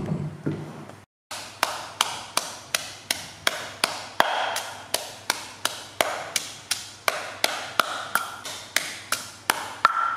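Wooden pestle pounding sliced lemongrass, chilies and herbs in a stone mortar to make lemongrass paste: a steady beat of about three strikes a second, starting about a second in.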